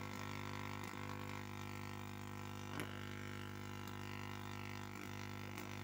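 Small auto-tuning Tesla coil running, its spark streamers giving a steady electrical buzz, with a couple of faint clicks.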